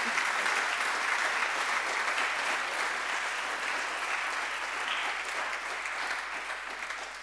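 Church congregation applauding, the clapping fading away near the end.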